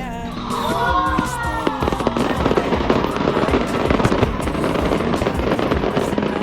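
Fireworks display: dense crackling and bursting throughout, with several falling whistle-like tones in the first two seconds.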